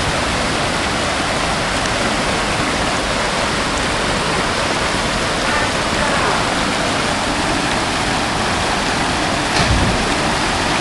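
Small waterfall cascading over rock into a river pool: a steady rush of water. A brief low thump comes near the end.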